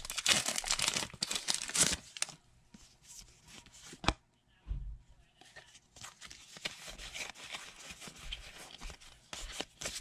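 Foil Pokémon booster pack wrapper crinkling and tearing open for about two seconds, then a sharp click and a soft thump, then faint rustling as the cards and wrapper are handled.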